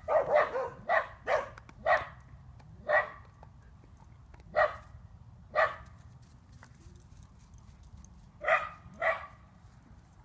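Puppy barking in play: about ten short barks, a quick run of them in the first two seconds, then single barks a second or more apart, and a close pair near the end.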